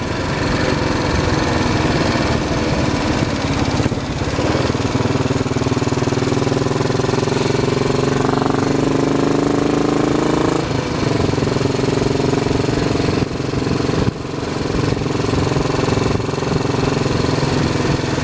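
Royal Enfield Bullet 500's single-cylinder engine running at road speed with wind noise. The engine note rises steadily for several seconds, drops at a gear change just under halfway through, then runs steady.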